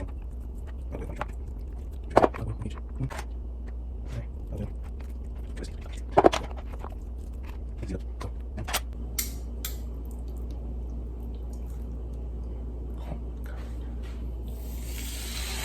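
Cookware and utensils being handled: scattered clicks and a couple of louder knocks over a low steady hum. Near the end a steady hiss starts suddenly.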